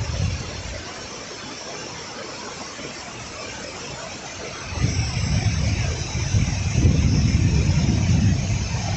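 Motor vehicle engine running with a low, uneven rumble that fades briefly and comes back louder about halfway through, over a steady hiss.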